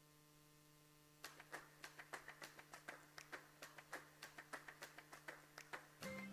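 Near silence: a faint steady hum, then from about a second in faint sharp clicks, a few a second and unevenly spaced.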